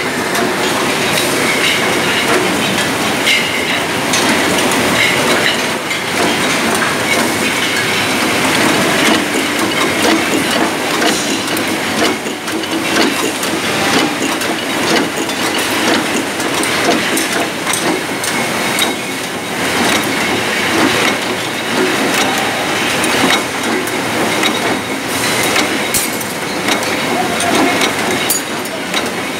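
Bottling line running: a steady clatter of machinery, with many small clinks and knocks of glass bottles moving along the conveyor through the filling and capping machines.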